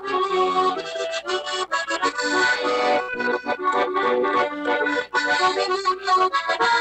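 Accordion playing a tune of quick, short notes.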